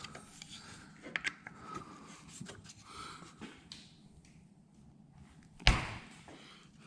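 Faint clicks and rustles of hand tools working at the engine's oil drain plug with a 6mm Allen key, then one sharp knock near the end.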